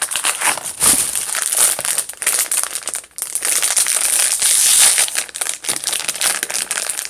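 Crinkling and crackling of a foil pouch being pulled open by hand, with a short pause about three seconds in.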